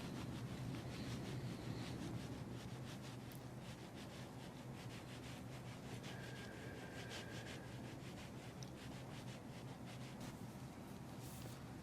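Faint, repeated rubbing and scuffing of hands working on a patient's body, over a steady low hum.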